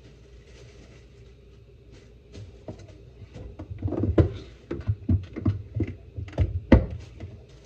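An irregular run of knocks and clatter, thickening from about two seconds in and loudest about four and nearly seven seconds in, over a low steady hum.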